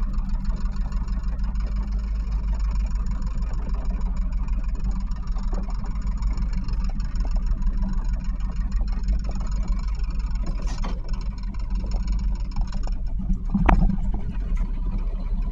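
A sailboat's inboard engine running steadily at low speed in reverse while coming alongside a dock. A single sharp knock sounds near the end.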